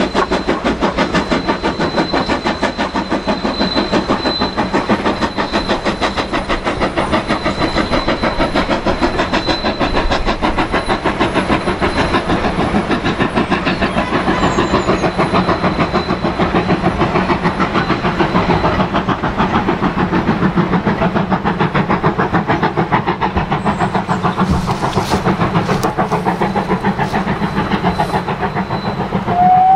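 BR Standard Class 2MT 2-6-0 steam locomotive 78022 pulling a train of coaches under steam, its exhaust beating in a fast, even rhythm throughout. A brief rising whistle-like tone sounds right at the end.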